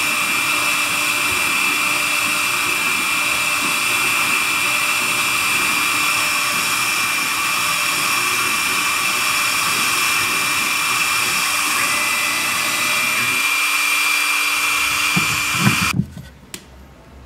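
CNC router's electric spindle running at high speed with a fine tapered bit carving a wood relief: a steady high whine over the hiss of cutting. It cuts off suddenly near the end.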